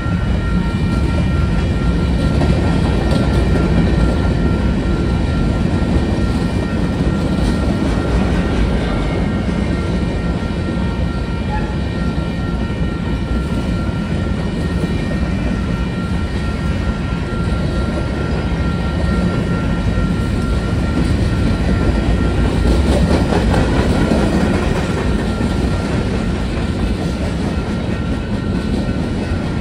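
Freight train cars, covered hoppers then centerbeam flatcars, rolling past through a grade crossing. A continuous heavy rumble with wheels clacking over the rail joints, and a faint steady high tone running over it.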